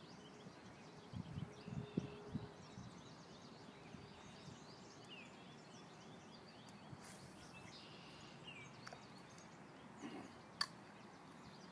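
Faint outdoor ambience with scattered small bird chirps over a low steady hiss. A few soft low knocks come in the first couple of seconds, and a single sharp click near the end.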